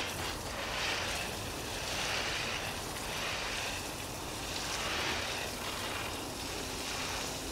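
Water jetting from a garden hose spray wand onto the potting soil of a black plastic nursery pot: a steady splashing hiss that swells and eases a little as the stream moves.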